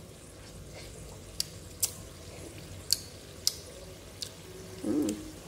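Thick spiced sauce simmering in a wok, with about five sharp, separate pops as bubbles burst at its surface. A brief murmured, voice-like sound comes near the end.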